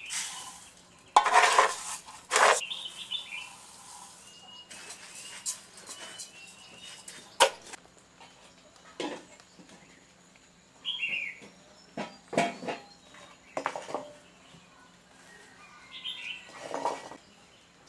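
Pots and utensils clattering and scraping now and then, with a small bird giving short high chirps a few times.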